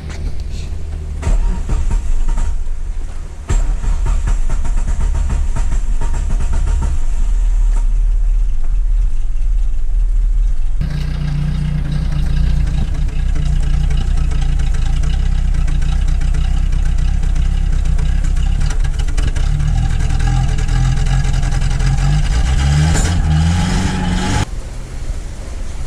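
Suzuki Karimun Kotak engine running after a rebuild. Its note shifts about ten seconds in, then it is revved with a rising pitch near the end before dropping back.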